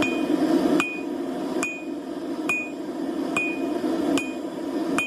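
Blacksmith's hammer blows on steel at the anvil, a steady rhythm of about one blow a second, each with a short, clear metallic ring. A steady low rushing noise runs underneath and is louder before the first blow.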